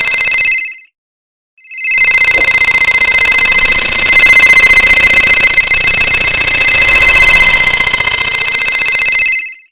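Cell phone ringtone stacked many times over into one very loud, dense ringing. It cuts out for about a second just after the start, then runs again until near the end.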